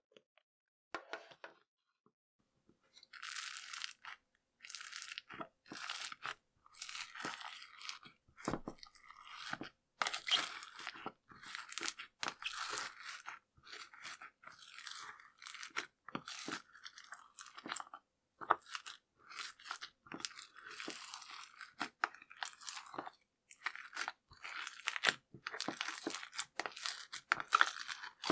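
Slime being squeezed and worked by hand, making irregular bouts of crackling and clicking with short pauses between.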